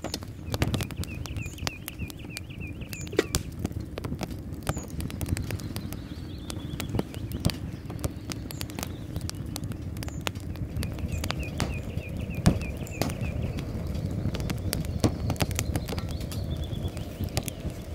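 Twigs burning in a small metal box wood stove, crackling and popping throughout over a low steady rumble, with one sharper pop about twelve seconds in. A bird gives a fast trill of high notes twice, about half a second in and again about ten seconds in.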